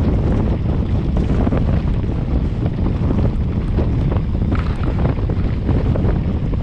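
Heavy wind buffeting on a GoPro's microphone as a mountain bike rolls down a stony track, under tyres rumbling over gravel and small rattles and knocks from the bike.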